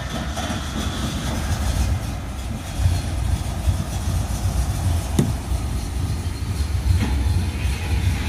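Aluminium river boat's engine running at idle: a steady low rumble, with two light knocks about five and seven seconds in.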